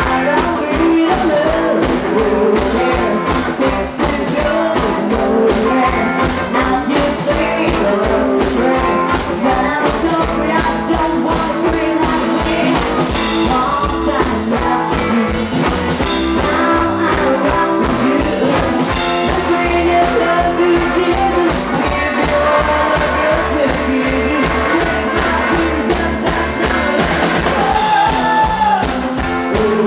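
Live rock and roll band playing at a steady beat: a woman singing lead into a microphone over an upright double bass, a Gretsch drum kit and a hollow-body electric guitar.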